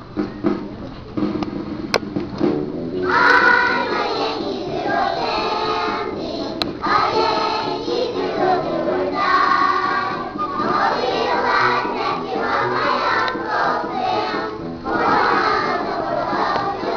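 A group of kindergarten children singing together as a choir over a musical accompaniment. The voices come in about three seconds in and carry on in phrases.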